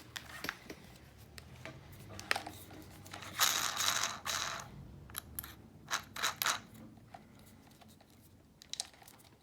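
Clicks and small knocks of a drill bit being fitted into a Black & Decker hammer drill's keyless chuck and the chuck sleeve being turned, with a second-long scraping noise about three and a half seconds in. The drill motor is not running.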